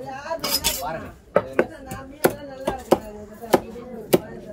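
Heavy cleaver chopping a black koduva fish into steaks on a wooden log chopping block: a run of about seven sharp chops starting about a second in, each followed by a brief ringing tone.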